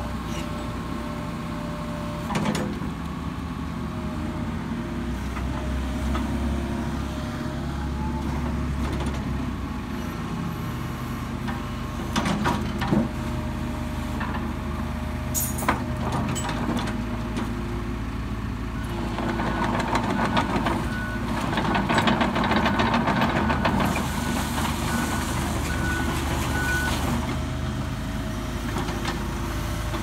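Deere 75D compact excavator's diesel engine running steadily while the boom, arm and bucket are worked and the upper structure swings, with a few sharp knocks. The engine grows louder for a few seconds past the middle.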